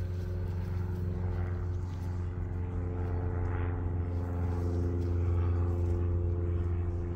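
A steady low hum from a running machine, with even overtones, getting slightly louder after the middle.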